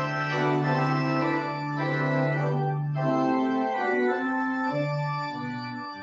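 Organ playing closing music: sustained chords over a held bass note, with the bass and chord changing about three seconds in.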